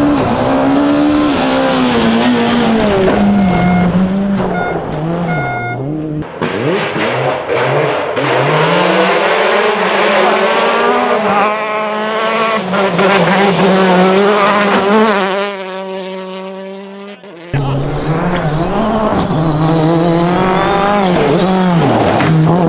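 Rally car engines revving hard on a gravel stage, pitch rising and falling with throttle lifts and gear changes. One car holds a steady note and fades away as it goes past.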